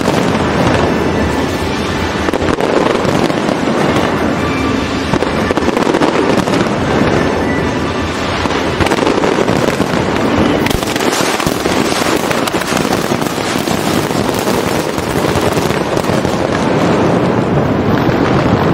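Fireworks display: a dense, continuous run of bursts and crackling, with music playing along underneath.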